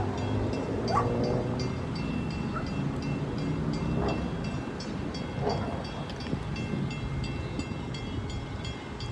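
Drawbridge warning bell ringing with quick, evenly repeated strikes over a low rumble, signalling the bridge's traffic gates as they lift to reopen the road.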